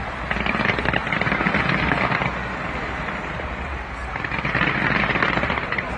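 Fireworks crackling in two dense spells of many rapid pops, one starting just after the start and one about four seconds in, over a steady low rumble.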